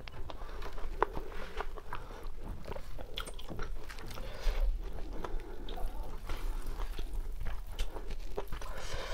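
Close-up eating sounds: chewing, and a whole roasted chicken being torn apart by hand, with many small clicks and crunches.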